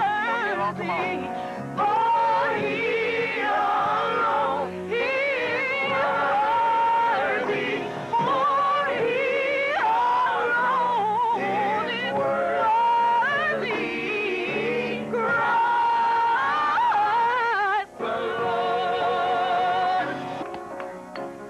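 Gospel singing with heavy vibrato and long held notes over instrumental accompaniment. About 20 s in the voices stop, and the accompaniment carries on more quietly.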